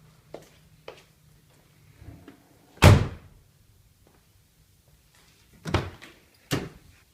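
Three sharp thunks of a fitting being shut inside a car: a loud one about three seconds in, then two smaller ones close together near the end, with faint clicks between.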